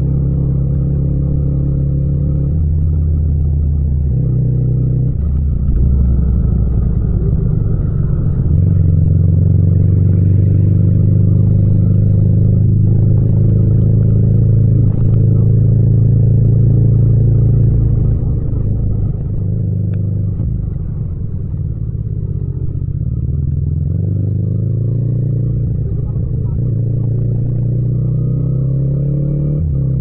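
Yamaha MT-07's parallel-twin engine under way, its revs stepping up and down through the first few seconds, then holding a steady pull. It eases off and quietens a little after about 18 seconds, then builds revs again near the end.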